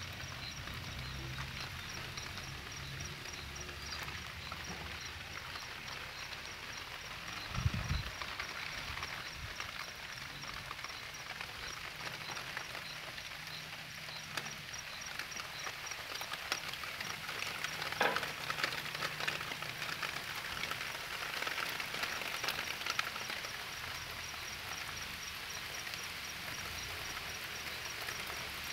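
Rain falling steadily, an even hiss of drops with scattered pattering, and a single low thump about eight seconds in.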